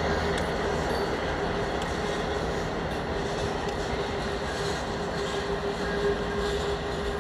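Freight train rolling past, the HESR locomotive followed by a tank car and covered hopper cars, with the steady rumble of wheels on the rails. A steady tone runs through it, plainest in the second half.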